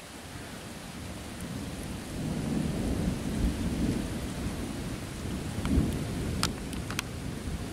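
Rolling thunder rumbling low over steady rain. The rumble builds about two seconds in and swells twice before easing, and a couple of sharp ticks come near the end.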